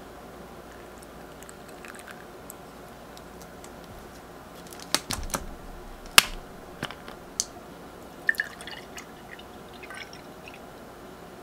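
A plastic drink bottle being handled and opened: a few sharp clicks and snaps of the cap, the loudest about six seconds in. Then a milky drink splashes and gurgles as it is poured into a glass near the end.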